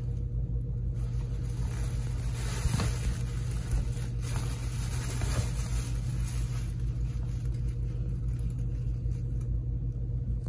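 A steady low hum, with a few faint rustles of a fabric cat tunnel as a cat grabs and kicks a toy inside it.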